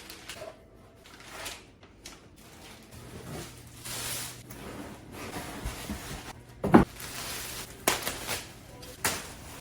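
Scattered knocks and clatter, the loudest a single sharp knock about seven seconds in, over a faint steady hum.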